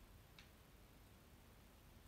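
Near silence: room tone, with one faint click about half a second in.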